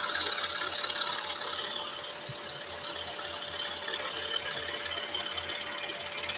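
Scroll saw running, its fine-toothed modified-geometry No. 5 blade cutting steadily through plywood at a constant feed, with a regular low pulsing from the blade's strokes.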